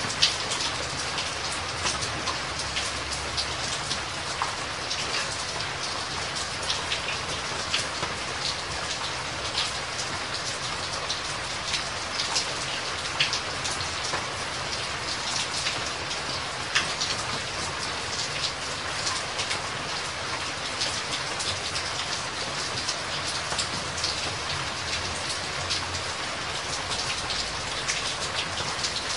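Steady water noise, thick with many small sharp drips and splashes.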